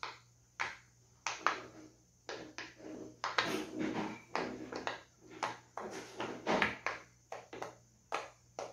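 Silicone push-pop bubble fidget toy being pressed, making a run of short, irregular pops.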